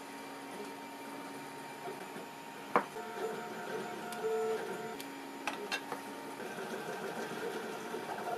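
Sharp clicks of hard plastic parts as an axle pin is pressed through a 3D-printed wheel into the container body, the loudest about a third of the way in and a few smaller ones past the middle. Behind them runs a steady machine whine of several tones that shift every second or two.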